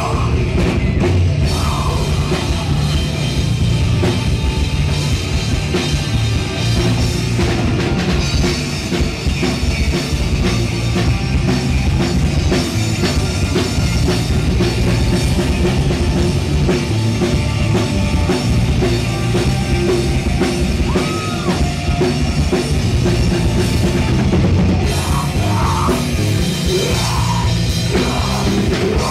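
Live heavy metal band playing loud: a drum kit with cymbals driving over electric guitars and bass, without a break.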